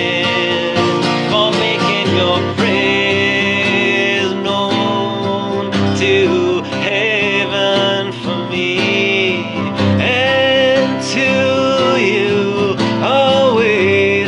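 A man singing to his own strummed acoustic guitar, in a country-folk style.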